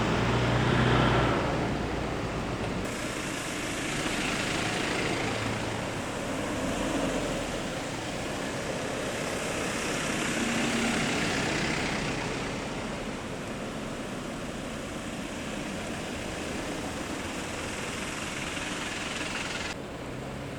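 Fire trucks driving past one after another, their engine and tyre noise swelling and fading every few seconds. No siren is sounding.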